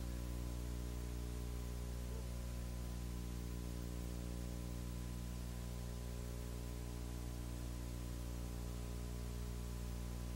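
Steady electrical hum with many even overtones under a constant hiss, with no other sound over it.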